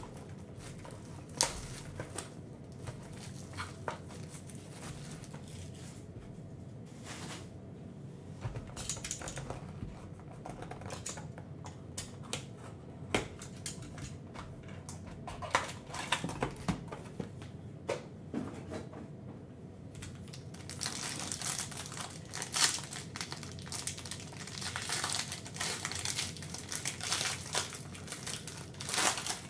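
Scattered taps, clicks and scrapes of a cardboard trading-card box being handled and opened. After about twenty seconds, a sealed card pack's wrapper crinkles and tears as it is opened.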